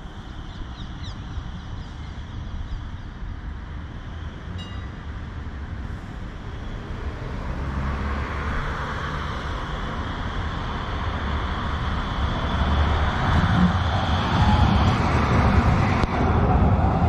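Tram approaching on rails, its rolling and running noise growing steadily louder, most of all in the second half.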